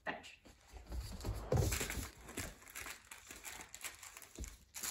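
Deutsch Drahthaar puppy's claws clicking and scrabbling on a hardwood floor as it chases and picks up a thrown toy, with irregular light crinkling and a few dull knocks, the loudest about one and a half seconds in.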